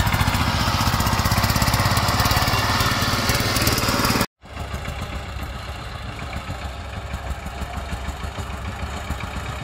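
Power tiller's single-cylinder diesel engine running loud and close with a rapid, even beat as it hauls a heavily loaded trolley. About four seconds in the sound cuts out abruptly, then returns quieter and more distant.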